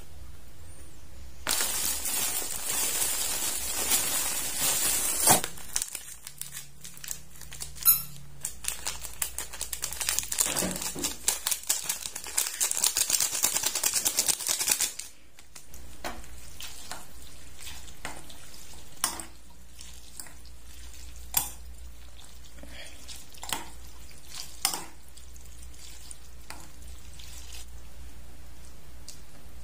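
Food-preparation sounds: a plastic seasoning sachet crinkling as it is torn and shaken out over a bowl of instant noodles, with stretches of steady hiss. After the midpoint come a few scattered light knocks and clinks.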